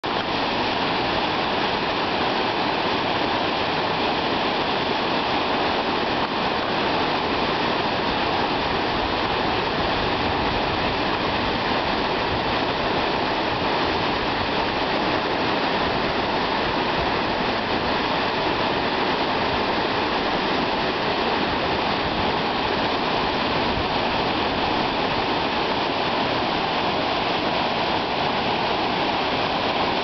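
Tall waterfall plunging down a rock face, a steady rush of falling water that does not change.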